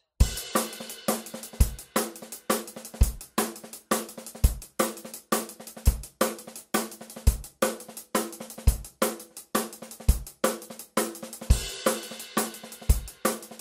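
Outro music: a drum-kit groove with hi-hat, snare and kick drum at a steady beat, over a held low note.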